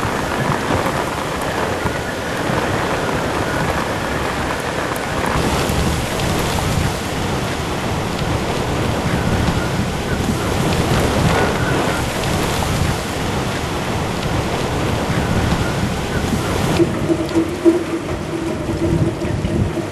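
Hurricane wind and heavy driving rain, a loud, steady rushing noise. About seventeen seconds in it drops to lighter rain, and a steady hum comes in.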